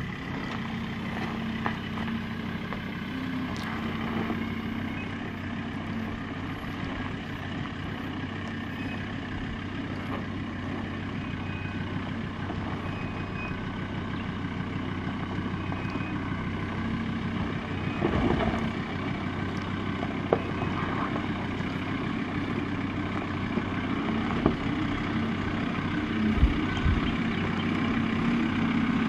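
Ford Ranger PX ute's engine running steadily at low revs as the ute crawls down a rocky off-camber slope. A few short knocks come through in the second half.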